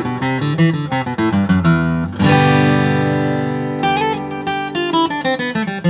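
Recording King RD-342 Tonewood Elite dreadnought acoustic guitar played solo: a run of quickly picked notes, a full chord struck about two seconds in and left to ring, then more picked notes.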